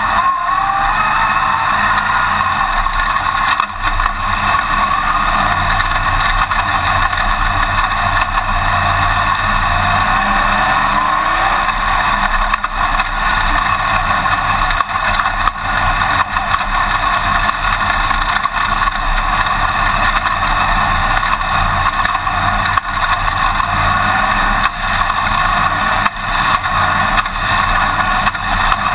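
Winged dirt-track modified race car's engine running loud and steady, heard from the cockpit, its pitch rising with throttle a couple of times, with short knocks and rattles from the chassis over the dirt.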